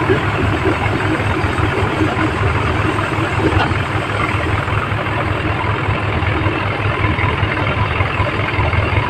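New Holland rice harvesting machine running steadily, a constant loud mechanical roar over a low engine hum.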